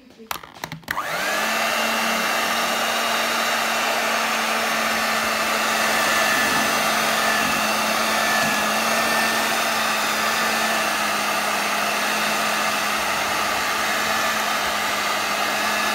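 Handheld electric hand mixer switched on about a second in, its motor whine rising quickly to speed, then running steadily as the beaters work flour into cake batter.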